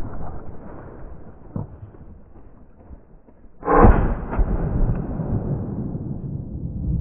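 A single shotgun shot about four seconds in, loud and close because the microphone is on the gun itself, followed by a steady rush of handling noise as the gun swings.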